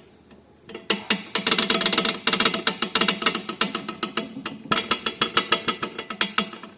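Front shock absorber rod of a Chevrolet Spin being worked by hand, clacking rapidly with many knocks a second, starting about a second in with a short break near five seconds. The knocking comes from loose play in the rod: the bushing that takes up its vertical play has broken.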